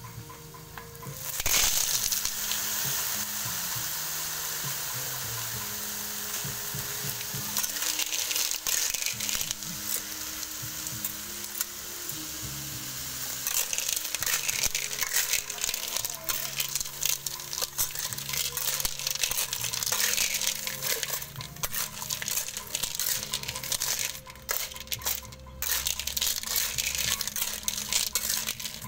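Food sizzling loudly in a hot wok, the hiss jumping up suddenly about a second and a half in. From about halfway, river clam shells clatter and scrape against the steel wok as a metal spatula stirs them.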